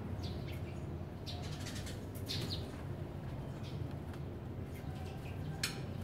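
Sparrows chirping in short, scattered calls over a steady low hum, with a brief sharp noise near the end.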